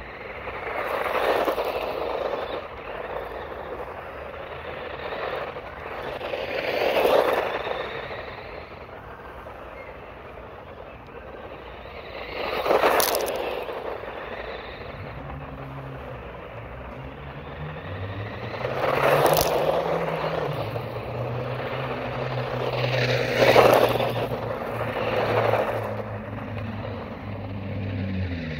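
Radio-controlled car driving hard over loose gravel, its tyres spinning and spraying stones in repeated rushing passes, about six in all. From about halfway a low steady hum runs underneath.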